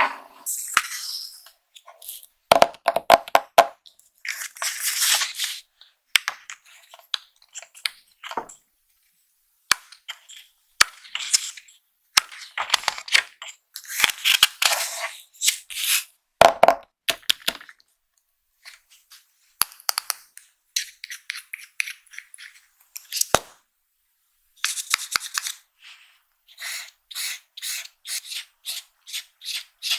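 Plastic packaging being handled and torn open by hand during a makeup-box unboxing: crinkling and tearing with sharp clicks and taps throughout. Near the end come about three short rubbing strokes a second.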